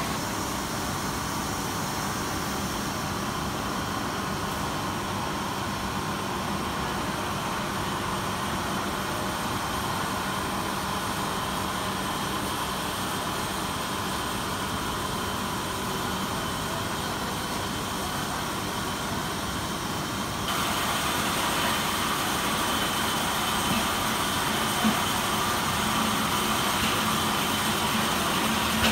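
Steady hum of factory machinery with a low drone. It steps up a little in level about two-thirds of the way through.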